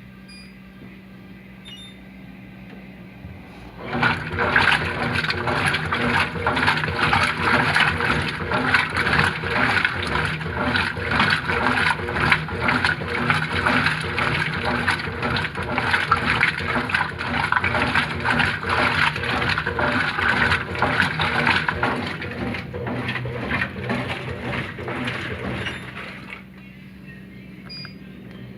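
Brastemp Ative 11 kg top-load washing machine agitating a load: water and clothes churning loudly for about twenty seconds, starting about four seconds in and stopping near the end, with a steady low hum before and after.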